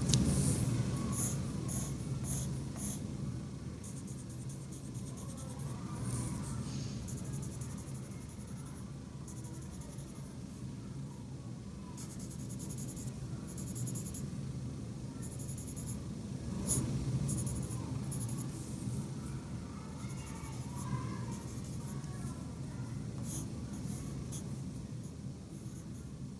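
A pencil sketching on paper: short, scratchy strokes that come in irregular runs with brief pauses between them.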